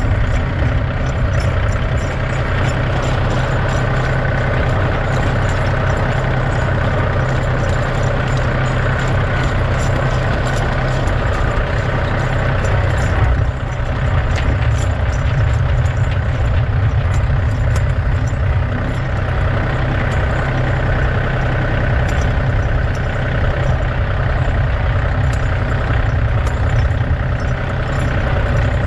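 John Deere 2038R compact tractor driving, its diesel engine running steadily, with homemade tire chains rattling and clinking against the driveway as the wheel turns.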